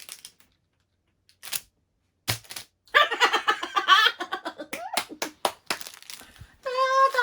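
A few sharp clicks, then a person laughing in a long rapid burst, ending in a drawn-out vocal 'ooh' near the end.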